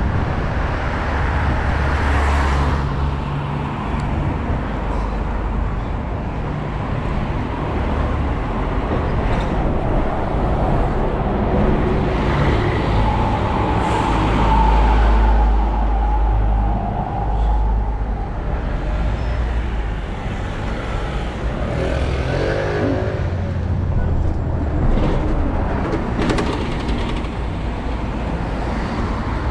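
Street traffic close by: car and diesel bus engines running and passing, a low steady rumble that swells loudest about halfway through.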